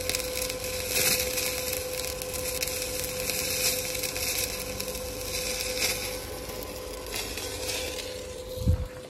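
Stick-welding arc from an inverter welder burning a 2.5 mm rod at 100 A: a continuous crackling sizzle over a steady hum. There is a low thump near the end, and the arc crackle stops just after it.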